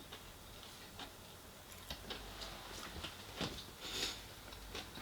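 Close-miked chewing and mouth sounds of someone eating a fried chicken fillet burger: scattered soft clicks and wet smacks, with two louder ones about three and a half and four seconds in.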